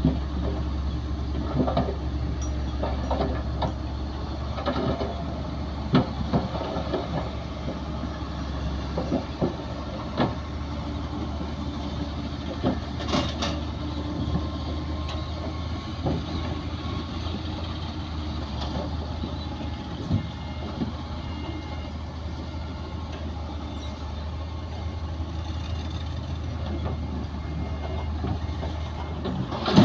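Bulldozer's diesel engine running steadily while pushing soil, with scattered knocks and clanks, one sharper clank about 13 seconds in.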